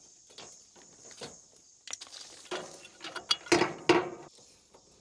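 Hand-work noise at a Mr Cool mini-split condenser's wiring terminal: small clicks and scrapes of a screwdriver and wires, then, past the halfway mark, a louder stretch of rattling and rubbing as the flexible electrical conduit is handled against the unit. Crickets chirr steadily.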